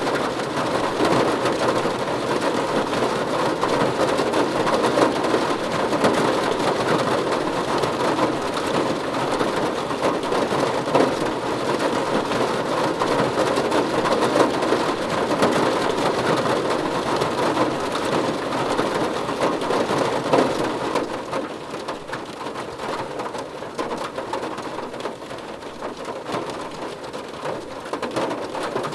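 Steady heavy rain pattering on a surface, a dense hiss of many drops. It eases and softens somewhat about two-thirds of the way through.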